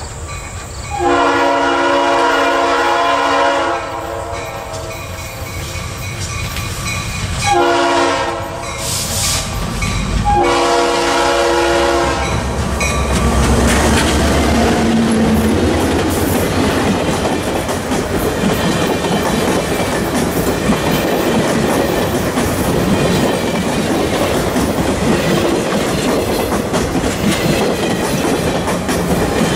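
Diesel locomotive's air horn sounding three blasts, long, short, long, as it nears a grade crossing. The locomotive then passes with a low engine rumble, and the passenger cars roll by with the clickety-clack of wheels on rail joints.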